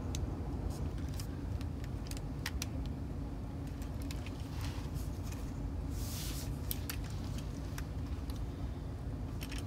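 Light, scattered plastic clicks and taps as the hinged doors of a Lego brick car are swung open and the model is handled, with a brief rustle about six seconds in, over a steady low hum.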